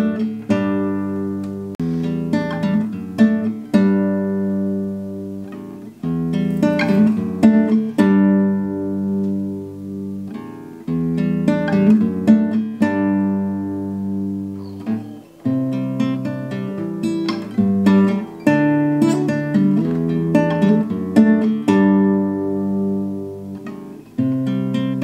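Classical acoustic guitar played slowly, with a new chord strummed about every two seconds and each one left to ring.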